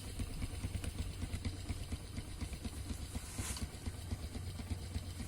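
Kubota DC-70 Plus combine harvester's diesel engine running at low revs: a low, steady rumble with a quick, even pulse. A brief hiss comes about three and a half seconds in.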